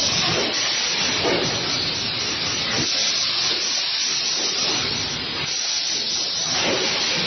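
Fully automatic shrink wrapping machine running: a steady, loud hiss with irregular mechanical rattling underneath.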